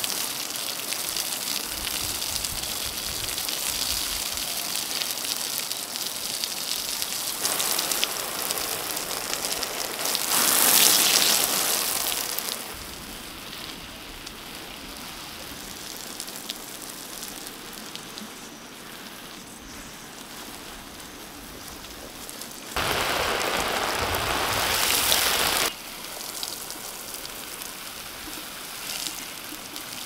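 Water spraying from a garden hose and falling onto soil and plants, a steady hiss. It gets suddenly louder for about two seconds a third of the way in, and again for a few seconds past the middle.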